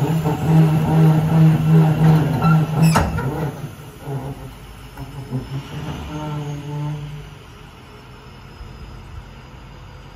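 Roll-off garbage truck's diesel engine running with a steady drone while it handles a steel roll-off bin, with a single sharp bang about three seconds in. The drone then eases and drops to a quieter steady running after about seven seconds.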